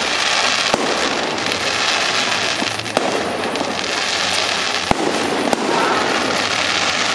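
A fireworks display going off, with a dense, continuous crackle and about four sharp bangs spread through it.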